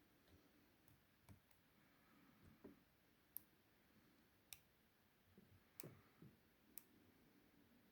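Faint, irregular metallic clicks of a lock pick and tension wrench working the pins of a small 30 mm padlock, about nine sharp ticks spread unevenly, with the loudest in the second half.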